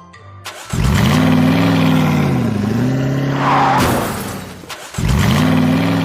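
Engine revving, heard twice. Each rev swells in pitch, dips, rises again and cuts off after about three seconds. Faint mallet notes fade out just before the first rev.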